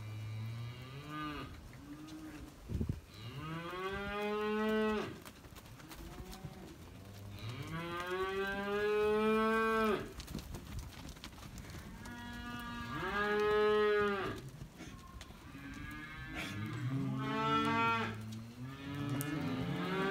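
Crossbred steers mooing, about five long calls of one to three seconds each, every call rising and then falling in pitch, with calls overlapping near the end.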